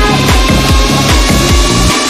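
Loud electronic music with a fast, steady, heavy bass beat.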